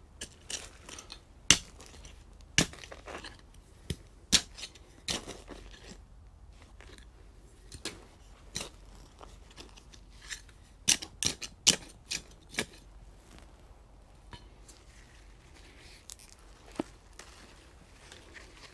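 Hand-work noise from knocking potted Treviso chicory seedlings out of their pots and planting them: irregular sharp clicks and knocks, some in quick clusters, fewer towards the end.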